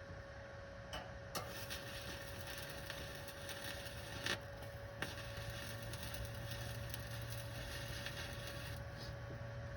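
Inexpensive welder's arc crackling as it lays a bead on a diesel exhaust stack, starting about a second in and cutting off near the end, with a few sharp clicks and a steady hum underneath.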